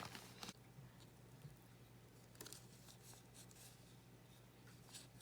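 Near silence: a few faint clicks and rustles of plant packaging being handled, over a low steady hum.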